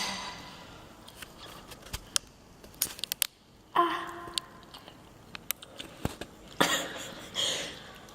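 A person coughing twice near the end, among scattered small clicks and knocks.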